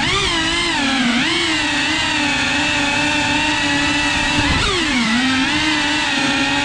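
Cinewhoop FPV quadcopter's electric motors and propellers whining in flight, a buzzing multi-tone hum whose pitch holds steady except for brief dips about a second in and again about five seconds in, as the throttle is eased and brought back up.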